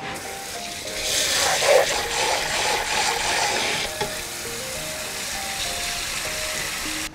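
Kitchen tap running into a sink while barley grains are swished and rinsed by hand in a brass bowl, the water splashing off the grain and metal. The rush of water is loudest between about one and four seconds in.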